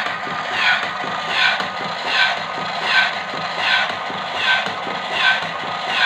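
Homemade mechanical ventilator running: a DC gear motor drives a crank and slide arm that squeezes a resuscitator bag, with a steady mechanical whirr and a falling squeak on every stroke, about eight strokes in six seconds.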